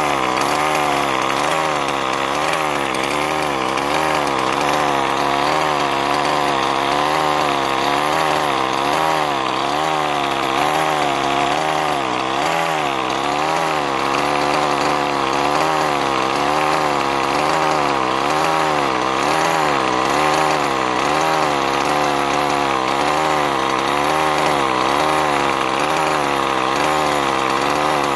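Losi MTXL's two-stroke gas engine idling during a heat-cycle break-in, its speed rising and falling regularly about once every second and a half.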